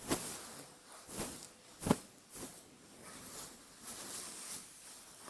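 Hair being handled close to the microphone: a few short, soft rustling sweeps.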